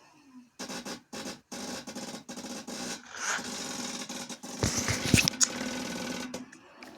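Engine of a 2003 Polaris four-stroke quad being cranked in a cold-start attempt, a rasping mechanical churn broken by short gaps, with a few heavy thumps about five seconds in.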